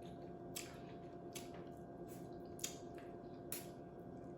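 Faint handling sounds of a seafood boil: four or five short crackles and clicks as shellfish shells are handled and cracked, over a faint steady hum.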